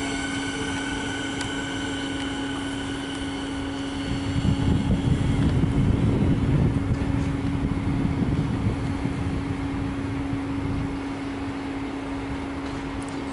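Siemens Nexas electric train pulling away, the whine of its traction motors fading over the first few seconds. A low rumble swells from about four seconds in and eases near the end, over a steady low hum.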